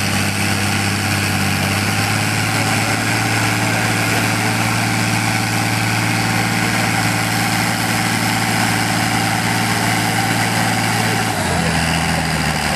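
Farm tractor engine running hard at a steady pitch as it drags a weight-transfer pulling sled down the track. Its note steps down near the end as the pull slows.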